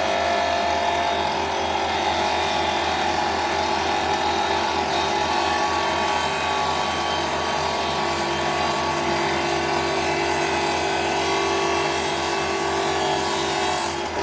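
Electric sander running steadily, its motor hum under a grinding hiss as it sands down a starfish. The motor's pitch shifts slightly about eight seconds in.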